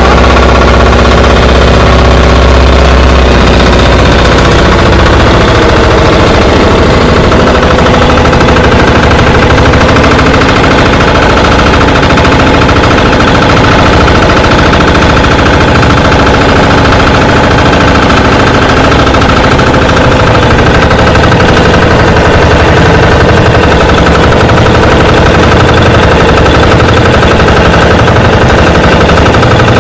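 A motor engine running loudly and steadily close by, its pitch shifting about four seconds in.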